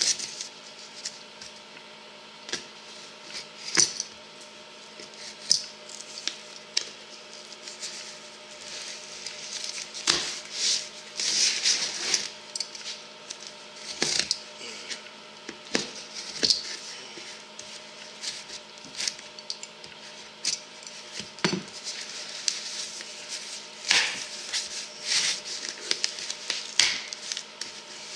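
Packaging being opened and rustled, with irregular clinks and knocks of metal parts being handled as a disc brake conversion kit is unpacked.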